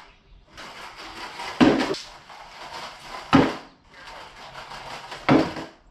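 Three sharp wooden knocks, about one every two seconds, with a rough rolling scrape between them as a stick and a skateboard are knocked and pushed across a concrete floor.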